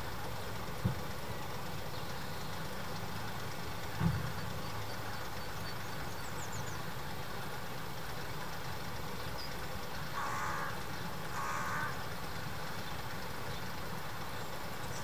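Carrion crow giving two harsh caws about a second apart, over a steady low rumble. Two short dull thumps come earlier, near the start and about four seconds in.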